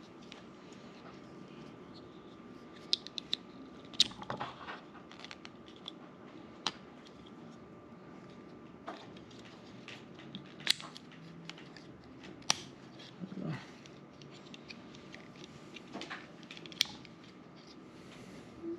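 Plastic clicks and snaps of a GoPro magnetic swivel clip and buckle mount being handled and unhooked, a few sharp clicks scattered among quieter fiddling and rubbing.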